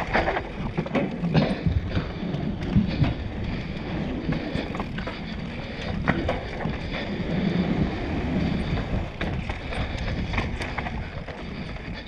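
Wind rushing over the camera microphone on a mountain bike descending a dirt forest trail, with tyre noise and frequent short clattering knocks from the bike over roots, rocks and boardwalk. The sound fades down near the end.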